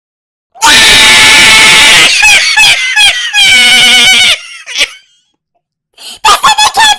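A person screaming loudly, followed by wavering, falling cries. After a short silence, fast bursts of laughter begin near the end.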